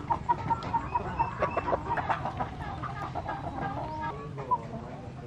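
A flock of domestic hens clucking and calling while feeding, with many short, overlapping calls that are busiest in the first couple of seconds and then calmer.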